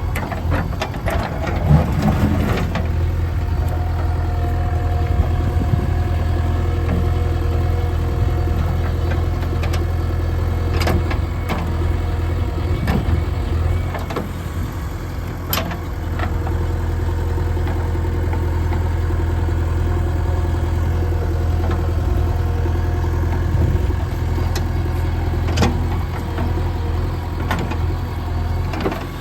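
Diesel engine of a JCB 3DX Xtra backhoe loader running steadily under work, with a few sharp knocks scattered through, and the engine easing off briefly about halfway and again near the end.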